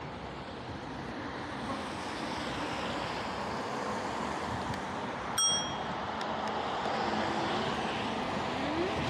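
Traffic at a rain-wet street intersection: cars passing with tyre hiss on the wet road. About halfway through, a handlebar bell gives a single bright ding.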